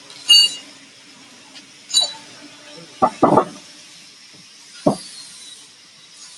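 Two short ringing metallic clinks, then a few dull knocks, over a faint steady hum.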